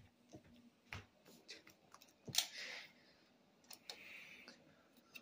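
Faint handling noise close to the microphone: scattered small clicks and rustles, with one louder click a little over two seconds in followed by a short rustle.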